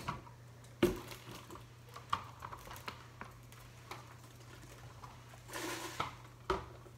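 Plastic hamster cage tub knocking and clattering as dirty bedding and droppings are tipped and shaken out of it into a garbage bag, a few separate knocks with a short rush of pouring, sliding bedding near the end.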